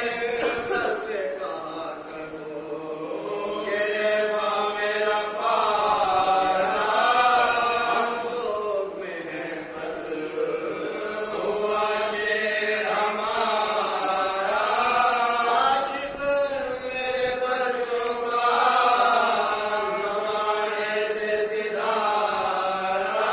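A group of men chanting an Urdu marsiya, an elegy for Hazrat Abbas, in chorus without instruments. Long, drawn-out melodic phrases swell and fall, with short breaths between them every few seconds.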